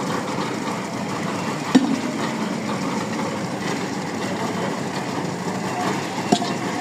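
Micro-pile driving rig running steadily, with two sharp hammer-like strikes about four and a half seconds apart.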